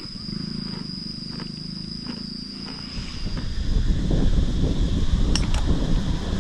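A long, low animal call over a steady high insect whine, lasting about the first half. Then wind buffets the microphone with a rising rumble.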